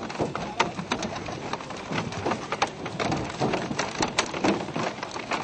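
A school of matrinchã fish leaping and falling back onto the river surface, a dense, irregular patter of many small splashes and knocks.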